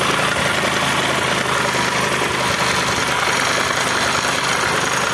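Bajaj Discover 125 motorcycle's 125 cc engine idling steadily with an abnormal mechanical noise, which the mechanic traces to a broken bearing inside the sprocket under the tappet cover.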